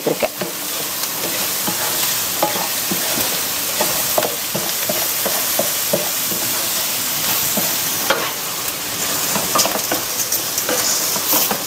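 Chopped onions, green chillies and moong dal sizzling in oil in a kadai, stirred with a wooden spatula that scrapes the pan, with scattered short clicks.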